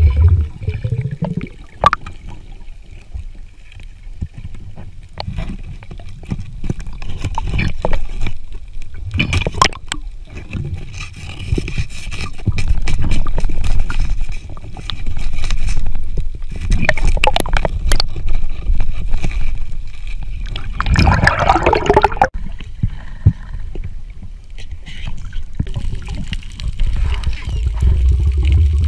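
Underwater water noise picked up by a submerged camera: a steady low rumble and gurgling with scattered clicks, and a louder gurgling burst about two-thirds of the way through.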